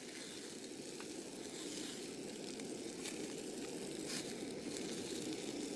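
Sausages sizzling in a small frying pan over a gas camping stove, with the burner rushing steadily and a few faint crackles.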